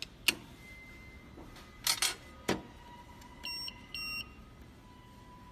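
A few sharp clicks of plastic parts being handled, then two short electronic beeps from an EZY OPEN remote-control copier as it is set to learn a remote's code.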